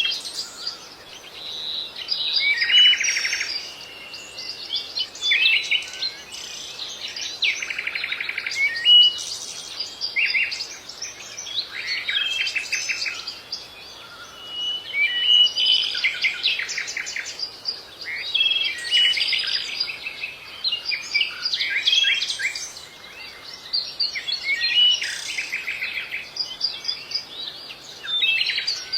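Captive finches singing, a continuous run of quick twittering notes mixed with short buzzy trills.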